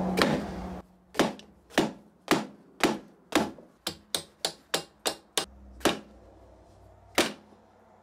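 Hammer blows on a wooden block held against the stuck base plate of a British Seagull outboard, about a dozen quick strikes with one more after a pause near the end, knocking at the seized part to drive it loose. A steady hum cuts off just under a second in.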